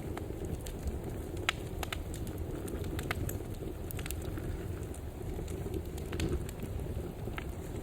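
Wood fire burning in a fireplace: a steady low rumble with scattered sharp crackles and pops, the loudest pop about one and a half seconds in.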